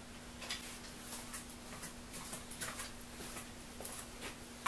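Faint scattered clicks and rustles of someone hunting for a piece of paper and a pencil, over a steady hum.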